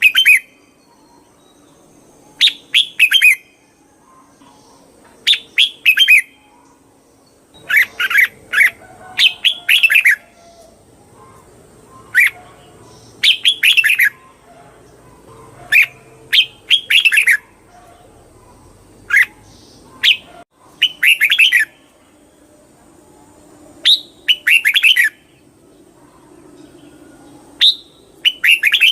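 Red-whiskered bulbul singing: short, quick phrases of a few bright falling notes, repeated about a dozen times with brief gaps between.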